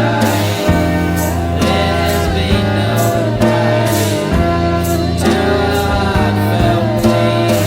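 Rock band recording playing: electric guitar, bass and drums with a sung vocal line.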